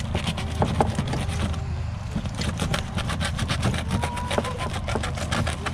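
Knife cutting into a charred aluminium-foil packet on a wire grill rack: a rapid, irregular run of foil crinkles and sharp clicks, over a steady low hum.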